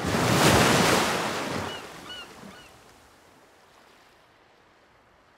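Sound effect of a breaking wave that swells and then fades away over about three seconds, with a few short bird cries near its tail.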